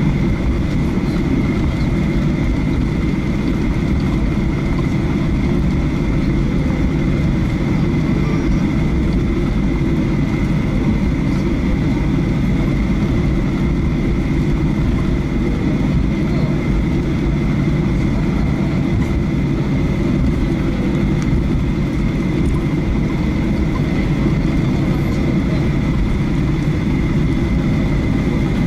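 Boeing 737-800's CFM56-7B turbofan at taxi power, heard inside the cabin beside the engine: a steady low rumble with a constant high whine on top.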